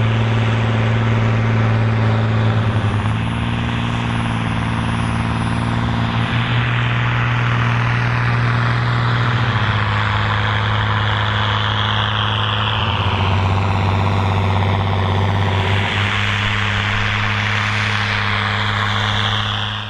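Tractor engine running hard and loud with a steady deep drone. In the second half a high whine falls slowly in pitch, and the sound cuts off abruptly at the end.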